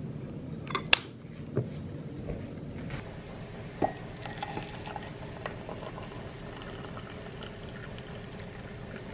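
A sharp click about a second in and a few light knocks, then water being poured into a ceramic mug to make a cup of tea.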